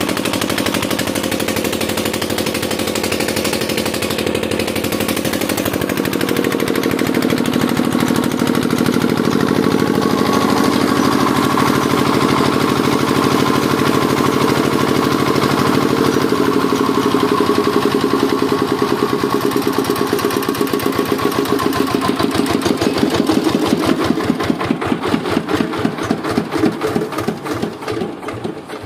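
Air-cooled single-cylinder Kirloskar diesel engine driving a 5 kVA generator, running steadily. In its last few seconds it slows, the separate firing strokes spreading further apart as the engine runs down.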